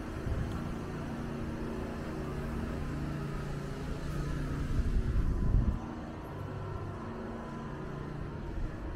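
Ambience of an open-air shopping street: a steady low hum with faint held tones, and a louder low rumble about five seconds in.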